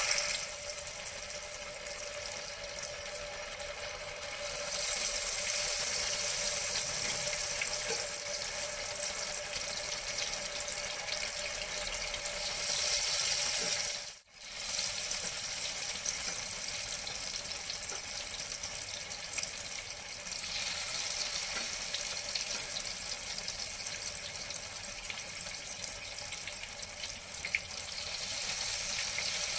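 Flour-and-tapioca-battered tofu deep-frying in hot oil in a wok: a steady sizzle that swells and eases a little, with a brief break about halfway through.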